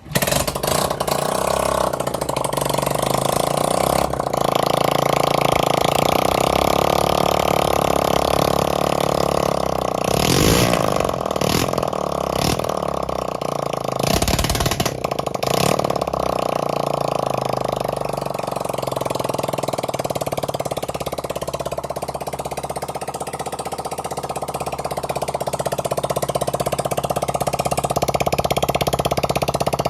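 Honda CG125's single-cylinder four-stroke engine starting suddenly and running steadily, just after a rebuild with a new piston and a service. It has a few brief louder moments about halfway through.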